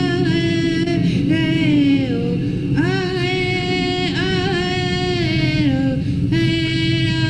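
A woman sings a Sioux praise song from a 1968 field recording. She holds long notes in a high, strained voice, and each phrase falls in pitch at its end.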